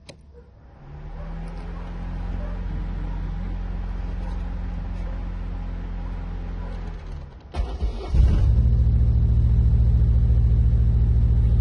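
A 2004 Chevy Pop's four-cylinder engine being started with the key: it turns over steadily for about six seconds, breaks off briefly with a short harsh burst, then from about eight seconds in runs louder and steadily.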